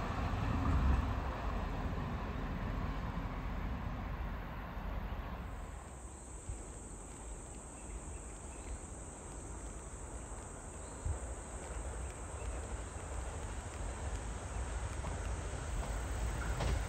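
An electric commuter train's running noise fading as it pulls away. After an abrupt change, insects trill in one steady high tone over a low outdoor rumble, and near the end the rumble of an approaching limited express train grows.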